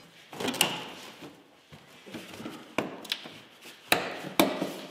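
Scattered sharp clicks and knocks of a hand tool and gloved hands on an old snowmobile's seat and body as the seat is worked loose, with faint rustling between. About five knocks; the loudest two come near the end.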